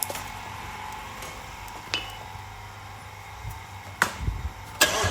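Low steady hum with a few sharp clicks and taps: one at the start, one about two seconds in, and a small cluster from about four seconds in, growing busier near the end.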